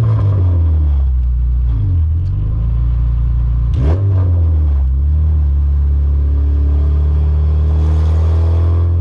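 Car engine running while driving, a steady low drone whose pitch dips and recovers about two seconds in and again about four seconds in, with a short sharp noise at the second dip.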